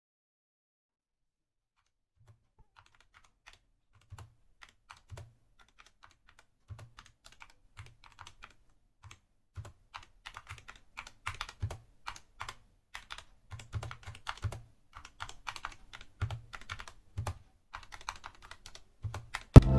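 Typing on a Skyloong SK64S 60% mechanical keyboard with Gateron optical red linear switches: irregular keystrokes, sparse and soft at first, then faster and louder about halfway through.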